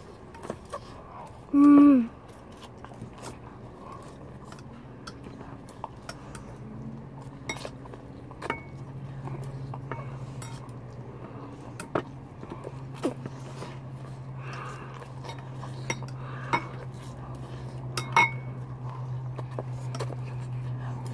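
Plastic chopsticks clicking and tapping against noodle bowls in scattered small clicks while noodles are eaten. A brief loud voice-like hum from one of the eaters comes about two seconds in.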